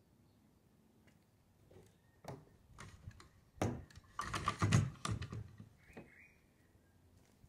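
Clicks, knocks and rattles of a trolling motor's tilt bracket and mount as the motor shaft swings back upright, a quick cluster from about two to five seconds in.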